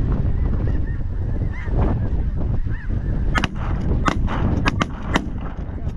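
Geese honking over strong wind on the microphone, then a rapid volley of about six shotgun shots from several hunters in the second half.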